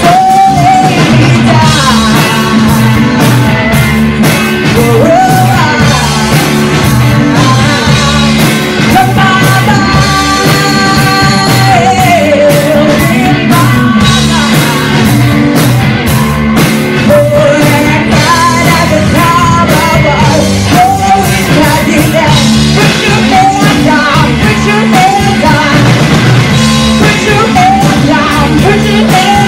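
Live rock band playing: a woman sings lead with several long held notes over electric guitar, bass guitar and a drum kit.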